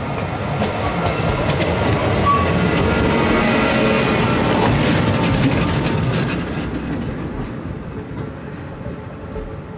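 A train passing on the tracks, its wheels clattering over rail joints and points. It builds over the first couple of seconds, is loudest through the middle and fades away toward the end.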